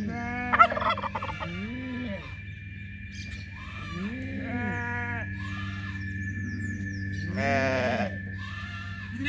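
Farmyard animals calling: goats bleating several times, mixed with short, repeated low calls from poultry, over a steady high-pitched tone.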